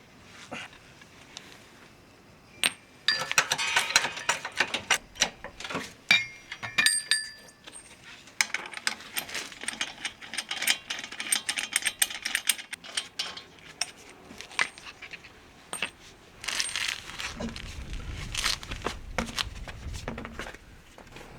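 Metal tools and parts clinking and clicking in quick runs, with bright ringing clinks, typical of hand work on a car wheel during a tyre change. A low rumble comes in near the end.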